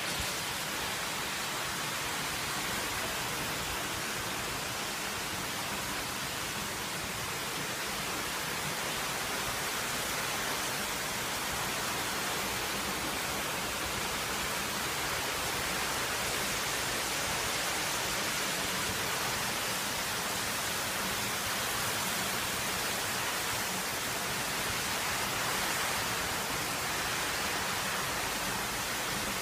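Heavy rain pouring down, a steady even hiss with no letup.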